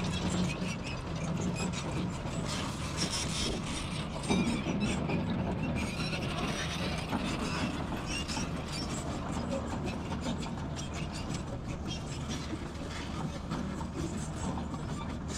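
Heavy-equipment diesel engine running steadily, with constant rattling, clanking and scraping of metal parts and a louder knock about four seconds in.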